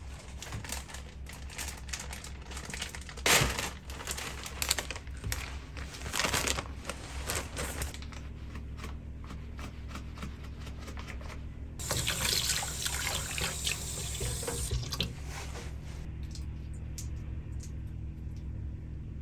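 Kitchen sink work with raw shrimp: scattered knocks and rattles of handling in a plastic bowl, then a tap running into the stainless sink for about three seconds a little past the middle, followed by softer handling.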